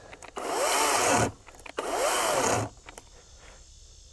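EGO 56-volt brushless chainsaw in an oak log, running in two short bursts, its motor speeding up and running down each time as the nearly empty battery gives out.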